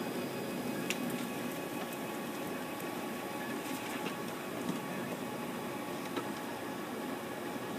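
HP Color LaserJet CM3530fs MFP running steadily through its startup initialization, with a few faint clicks about a second in and near the middle.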